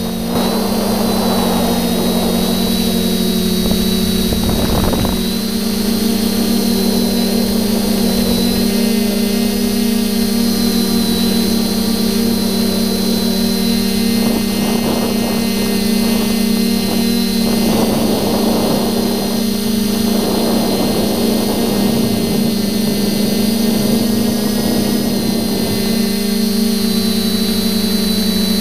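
Steady hum and whine of a TBS Discovery quadcopter's electric motors and propellers, heard through its own onboard camera, with a few passing rushes of noise.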